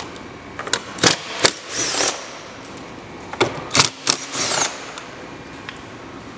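Socket tool backing out two 8 mm door-panel bolts: a few sharp clicks and knocks, then a short whirring spin, happening twice.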